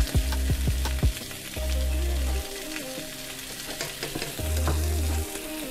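Oxtail pieces sizzling as they sear in a hot frying pan, a steady hiss with a few light clicks in the first second. Background music with deep bass notes plays along.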